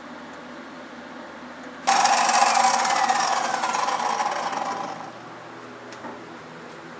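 Power saw running for about three seconds, likely cutting pallet wood. It starts suddenly and fades out with a falling whine.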